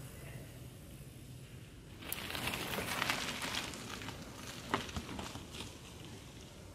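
Mountain bike tyres crunching and crackling over a dirt and stone trail, with scattered sharp clicks and knocks from the bike. It starts abruptly about two seconds in, after faint outdoor background.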